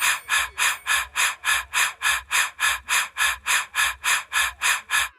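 Evenly spaced hissing pulses, about four a second, like a shaker or hi-hat pattern in backing music. They cut off abruptly near the end.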